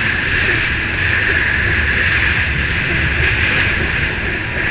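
Racing jet ski's engine running steadily at speed, with the rush of water and spray close to the onboard microphone.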